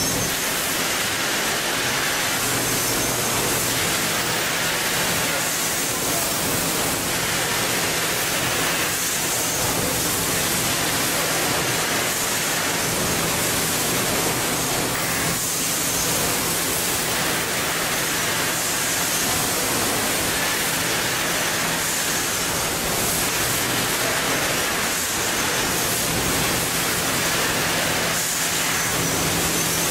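Steady din of a seed-packaging line's machinery: an even, hiss-like noise with a low hum underneath, unchanging throughout.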